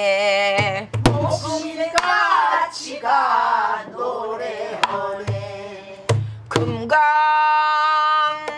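A voice singing a Korean namdo folk song, the pitch bending and wavering, over irregular strikes and deep booms of a buk barrel drum. Near the end the voice holds one long steady note.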